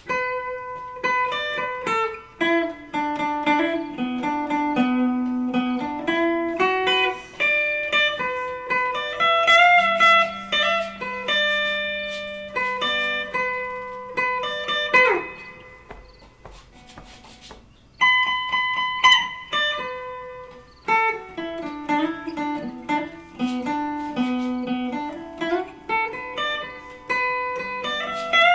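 Electric guitar played on a clean amp tone: a melody picked note by note, with a phrase that comes round again. About fifteen seconds in the pitch slides down, and after a short pause the playing resumes.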